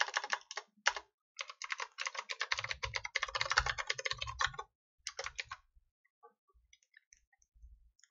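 Rapid typing on a computer keyboard, stopping a little after five seconds in, followed by a few faint clicks.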